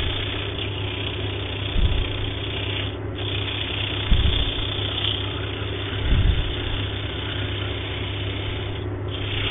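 Wood lathe running steadily with sandpaper pressed against the spinning hardwood base, a steady hiss over the motor's hum, as rough, torn grain is sanded smooth. The sanding hiss drops out briefly about three seconds in and again near the end, and a few low thumps come about two, four and six seconds in.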